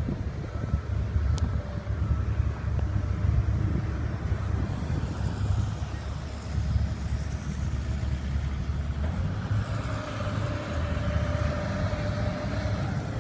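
Heavy earthmoving machinery at work: the diesel engine of a hydraulic excavator, with an articulated dump truck beside it, running with a steady low rumble. A higher steady hum joins in about nine seconds in.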